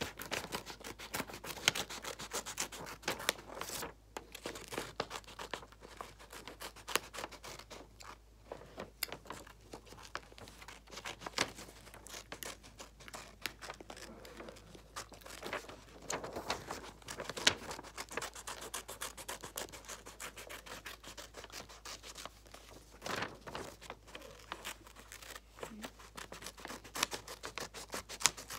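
Scissors cutting through a sheet of paper along a drawn outline, with quick irregular snips and the paper rustling as it is turned.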